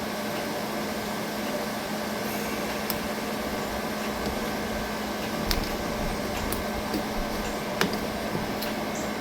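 A steady mechanical hum, like a fan or air conditioner running, with a few faint light clicks from small handling noises.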